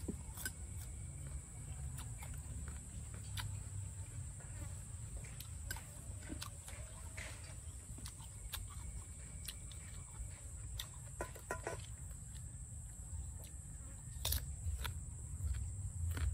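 Someone eating crisp green mango: chewing with scattered short crunches and clicks.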